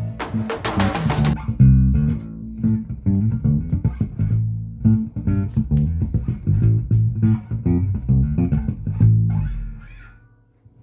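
Four-string Fender Player Precision Bass, fitted with a Fender HiMass bridge, played as a run of plucked low notes that stop near the end.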